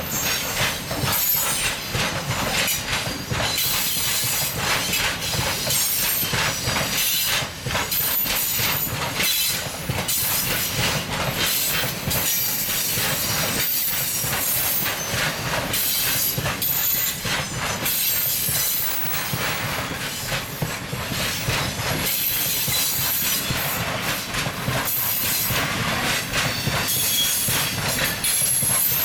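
Freight train of high-sided open wagons rolling past, the wheels clattering over the rail joints in a steady stream of clacks, with a high wheel squeal that comes and goes.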